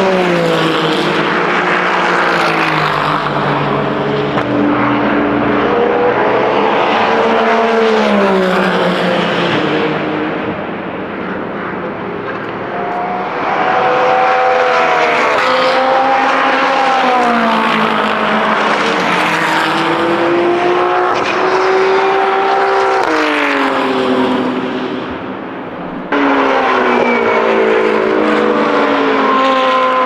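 Several GT3 race cars, among them an Aston Martin Vantage and a Lexus RC F, pass one after another through a corner. Their engine notes fall through downshifts on braking, then climb through upshifts as they accelerate away. About four seconds before the end, the sound cuts abruptly to another, louder car.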